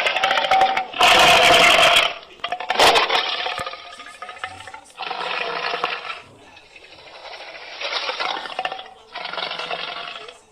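Custom dragon monster sound effects: a string of about six separate roars and growls, each a second or so long, the ones in the first three seconds loudest and the later ones quieter.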